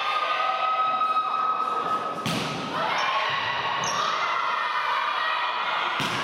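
Volleyball hitting the ball or the hard gym floor: two sharp thuds about four seconds apart, over a steady high-pitched hum.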